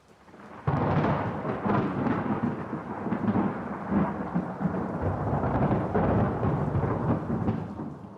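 A thunder strike: a faint build, then a sudden crack under a second in, followed by a long rolling rumble that fades away near the end.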